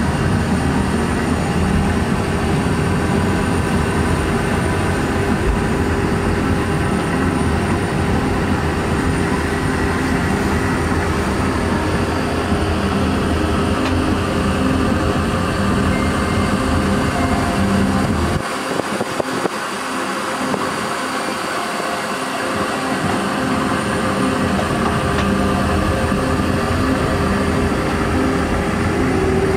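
Steady airliner cabin noise in flight, heard inside the lavatory: a constant low rumble of engines and airflow with a steady hum. The deepest part of the rumble thins out for a few seconds a little past the middle, then returns.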